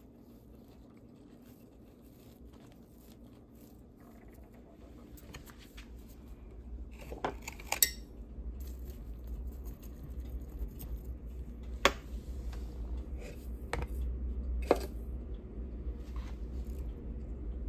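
Faint scratching of fingers pressing potting soil in a cut plastic-bottle pot, then a handful of sharp clicks and taps of hard plastic being handled, the loudest about eight seconds in and two more around twelve and fifteen seconds, over a low rumble of handling.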